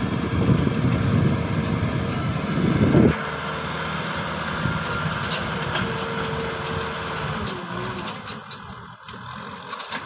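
Kubota M6040 tractor's diesel engine running as it pulls a disc harrow through dry field soil. The heavy low rumble drops off suddenly about three seconds in, and the engine grows fainter near the end.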